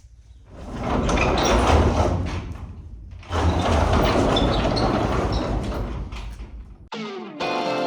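Two long swells of rushing noise with a low rumble underneath, each lasting a few seconds, then guitar music starts near the end.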